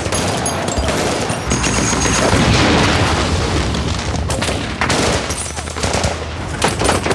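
Film battle sound: rapid automatic gunfire with an explosion swelling about two to three seconds in. It is followed by separate sharp shots near the end.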